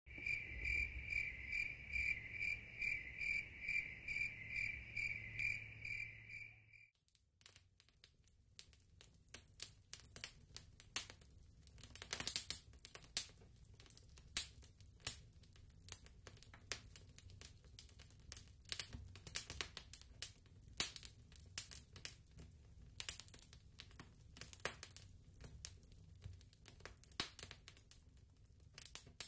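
Crickets chirping in a steady pulse of about three chirps a second, cutting off suddenly about seven seconds in. After that, a wood campfire crackles with frequent sharp pops and snaps.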